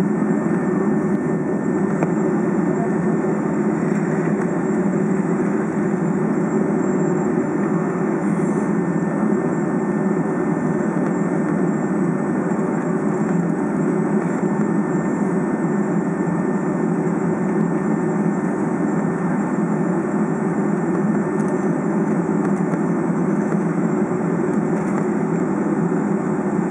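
Steady cabin drone inside a Boeing 757 taxiing on the ground, its jet engines running at low taxi thrust.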